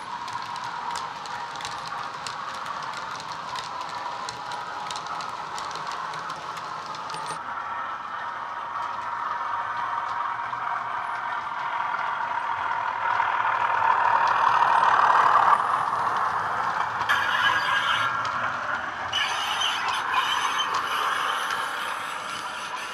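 Hornby Class 31 model locomotive's DCC sound decoder, playing a Class 31 diesel engine running under power through a small bass-enhanced speaker, with the model's wheels rattling over the track. It grows louder as the train approaches and is loudest about two-thirds of the way through. A high squeal joins in near the end.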